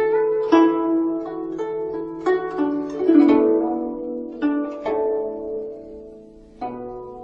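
Background music of plucked string notes, harp-like, struck one after another and dying away, sparser near the end.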